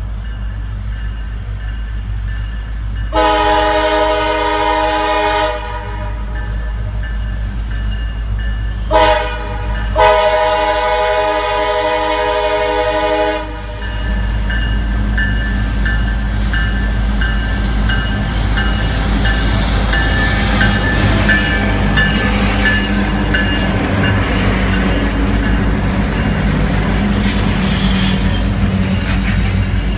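Diesel freight locomotive's horn sounding for a road crossing: a long blast, a short one and another long one. Then the locomotive runs past and a string of freight cars rolls by, its wheels rumbling and clattering on the rails.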